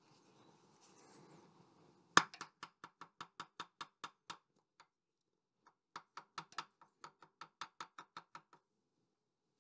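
Rapid, light knocks on a wooden block, about six a second, driving a tight-fitting hydraulic piston down into its ram cylinder bore. The run opens with one hard knock about two seconds in, breaks off briefly around five seconds, then starts again.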